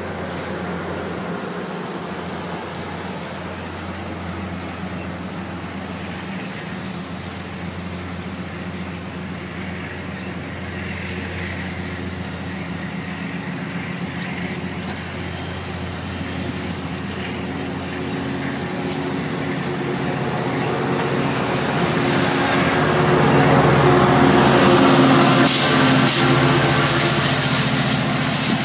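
Metrolink passenger train running, heard from on board: a steady droning hum with rail and wheel noise. The noise swells louder about twenty seconds in, peaks with a brief hiss, then eases off near the end.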